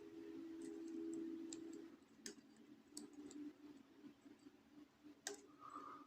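Faint clicks and ticks of a lock pick working through the warding of a rim cylinder lock. Two sharper clicks come about two and five seconds in, over a faint low hum.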